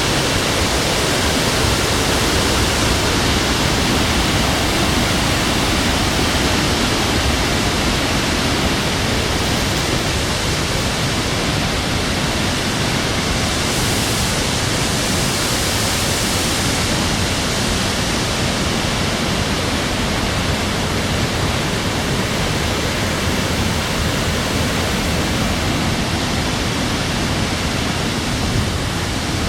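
Waterfalls falling close by: a steady, loud rush of water.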